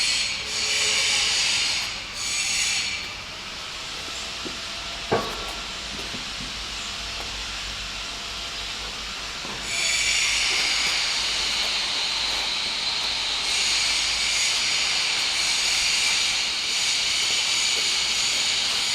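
Electric portable horizontal band sawmill running, its band blade cutting through wood with a steady high-pitched hiss. The hiss drops to a quieter run for several seconds, with one sharp click about five seconds in, then comes back loud about ten seconds in.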